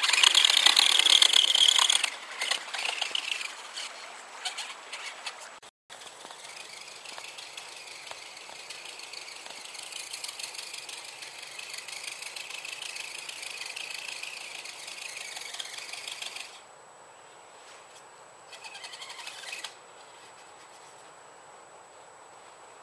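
Radio-controlled scale pickup truck's motor and gears whining as it drives. It is loud and close for the first couple of seconds, then fainter and steady, and there is a short burst of throttle near the end.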